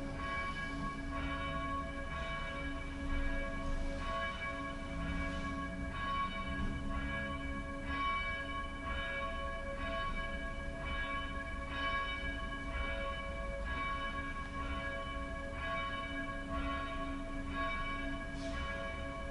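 Church bells tolling, struck roughly once a second with each stroke ringing on into the next: a death knell for a deceased member of the congregation.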